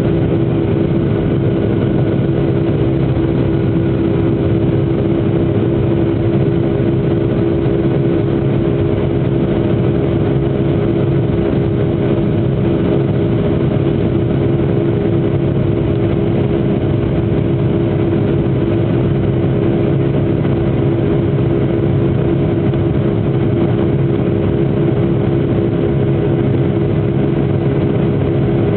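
Jet airliner cabin noise during the climb: the wing-mounted turbofan engines running steadily at climb power, heard from inside as an unbroken hum with a constant low tone over a rushing noise.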